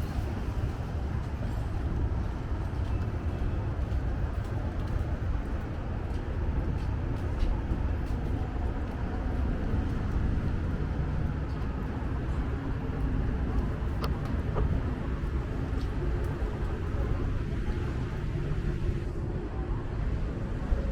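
Street traffic ambience: a steady low rumble of passing cars and engines, with a couple of brief clicks.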